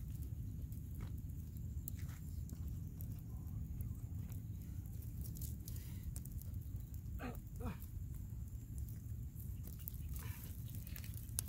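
Small twig campfire burning with faint, scattered crackles under a steady low rumble of wind on the microphone. About seven seconds in come two short animal calls in quick succession.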